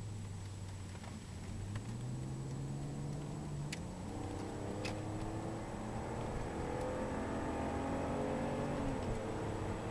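BMW E46 330Ci heard from inside the car while it gathers speed, with a whine whose pitch climbs as the car speeds up and falls back near the end. The owner wonders whether the whine is tyre noise.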